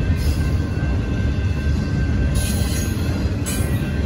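Union Pacific intermodal well cars carrying truck trailers rolling past at a grade crossing: a steady, loud low rumble of wheels on rail, with the crossing bell's steady tones above it. Two short hissing bursts come about two and a half and three and a half seconds in.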